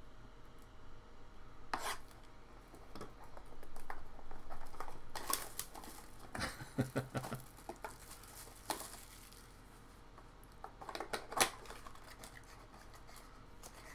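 A trading-card box and its packs being handled: irregular rustling, crinkling and light clicks of cardboard and plastic wrapper, busiest in the middle and again near the end.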